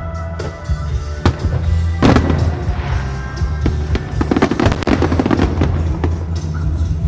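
Fireworks display: sharp single bangs, a big burst about two seconds in, then a dense run of rapid pops around four to five seconds in, over music with a steady heavy bass.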